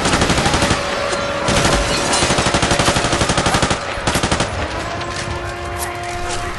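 Automatic gunfire in rapid, evenly spaced bursts: a short burst at the start, a long string from about a second and a half in to nearly four seconds, and a brief burst just after, over a continuous background din.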